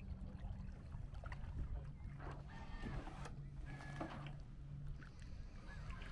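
Steady low motor hum over a rumbling wash of wind and water noise, with a few short high tones about halfway through.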